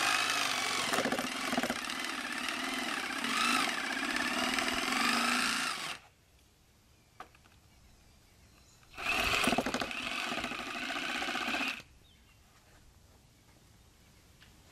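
Cordless jigsaw cutting through a wooden rafter in two runs, about six seconds and then about three seconds, its motor pitch wavering under load. It is finishing the corners of a bird's mouth notch so the circular saw need not cut past the lines.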